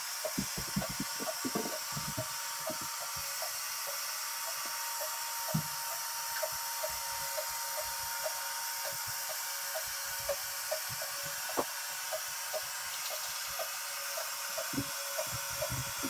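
Robot vacuum-mop running: a steady whir and hiss from its motors, with a light, regular clicking a few times a second.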